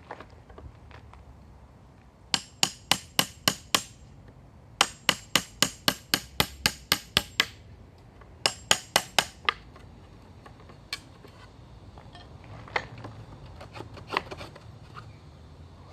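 Claw hammer striking a floorboard chisel to drive it under a pallet board: three quick runs of sharp metal-on-metal blows, about four a second, then a few lighter knocks near the end as the board is worked loose.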